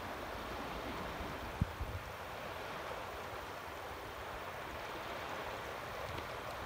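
Incoming tidal bore: a steady rush of water as the flood tide surges over the sandbanks and into the channel, like a river running. A brief low thump about one and a half seconds in.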